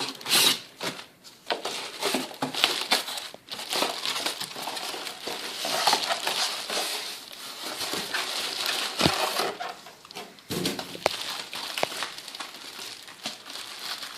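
Packaging being handled and pulled apart during unboxing: irregular crinkling and crushing with scattered small knocks and clicks.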